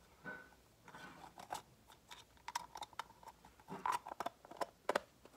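Faint, scattered clicks and taps of small plastic toy pieces being handled and closed up, a little busier in the second half.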